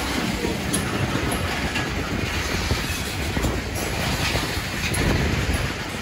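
Open-top rock cars of a freight train rolling past close by: a steady rumble and rattle of steel wheels on the rails, with a few sharp clicks as wheels cross rail joints.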